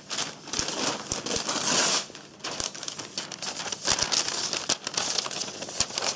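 A folding knife blade slicing through a sheet of newspaper, a sharpness test after field use. The sound is a series of paper rustles and tearing swishes, with small sharp clicks in between.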